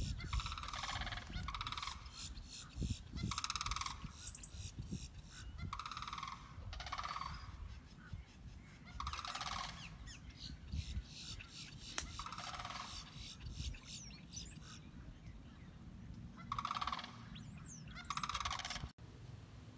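Large birds honking over and over, one half-second call every second or two, some coming in quick pairs. A single sharp click about twelve seconds in.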